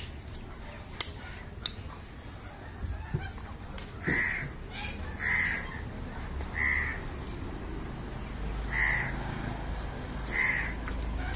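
A crow cawing five times: short, harsh calls a second or two apart, starting about four seconds in. A few sharp clicks come before the calls.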